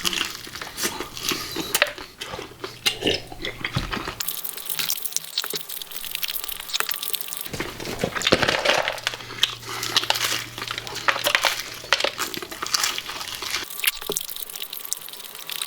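Close-up eating sounds: crispy fried chicken being bitten, crunched and chewed, with a dense run of sharp crackles and clicks from the coating and the handling of pieces and containers.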